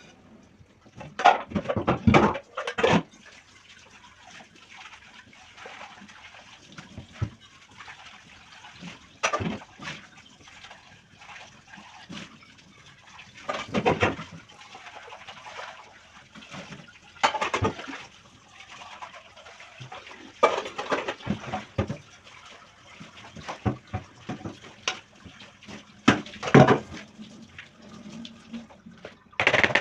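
Dishes being washed by hand at a sink: short bursts of water splashing and running every few seconds, with quieter handling and rinsing between them.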